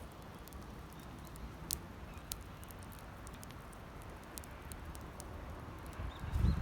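Wood campfire crackling: scattered sharp pops and ticks over a low steady rumble, with a dull low thump near the end.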